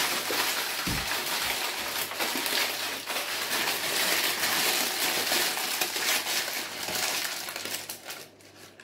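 Baking paper crinkling and rustling as it is peeled off a banana loaf on a wire cooling rack, with a light knock about a second in. The rustling dies away near the end.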